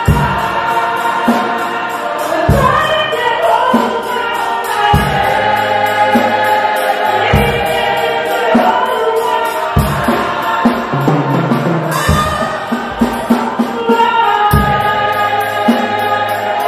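A church choir and congregation sing a gospel hymn through a microphone and loudspeakers. Under the voices run a deep beat about every two and a half seconds and quick, steady high percussion ticks.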